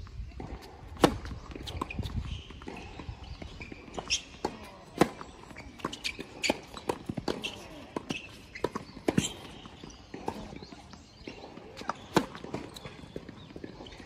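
Singles tennis on a hard court: a serve struck about a second in, then rallies of racket strikes on the ball, ball bounces and footsteps on the court surface, each hit a sharp pop at irregular spacing.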